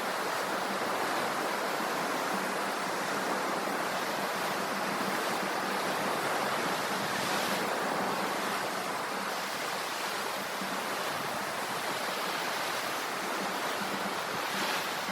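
Ocean surf washing on the shore: a steady, even rush of waves with no distinct breaks standing out.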